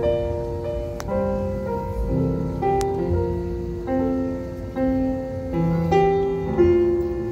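Live classical music from a grand piano and a string orchestra, with held notes that move to new pitches about once a second.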